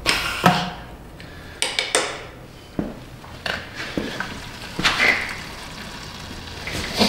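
Hydraulic oil draining from a mini excavator in a thin stream, splashing into a plastic bucket as the flow tapers off. Several sharp knocks and rustles of handling sound over it.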